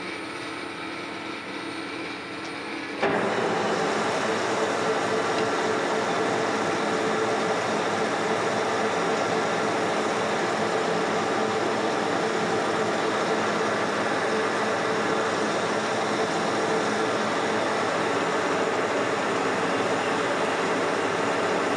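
Metal lathe turning aluminium stock, a steady running drone with the cutting tool working the spinning part. About three seconds in the sound jumps abruptly louder, from a quieter hum with a few held tones to the full running and cutting noise.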